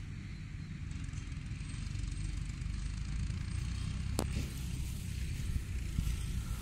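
Wind rumbling steadily on the microphone, with a faint hiss above it and one sharp tap about four seconds in.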